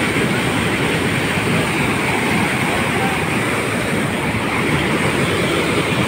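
Floodwater from an overflowing lake pouring over a stone weir and churning below it: a steady, loud rush of turbulent water.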